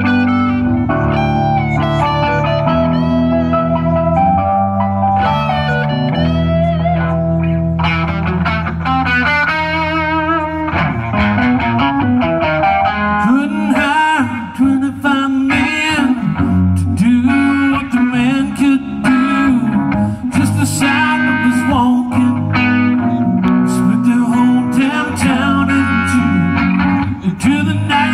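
Live instrumental break for guitar and keyboard: a guitar plays a solo of bent notes with vibrato over held keyboard chords, growing busier from about eleven seconds in.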